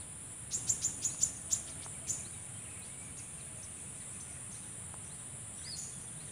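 Insects chirping in a steady, high-pitched drone. A quick run of about seven sharp clicks comes in the first two seconds, and a faint bird chirp near the end.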